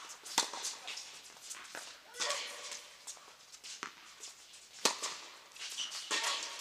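Tennis balls struck with racquets during a doubles point: several sharp pops at uneven spacing, the loudest nearly five seconds in, with softer scuffs of players moving on the court between them.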